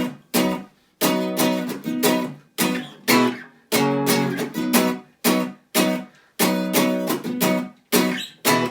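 Acoustic guitar strummed in a choppy rhythm, about two chords a second, each chord cut off short.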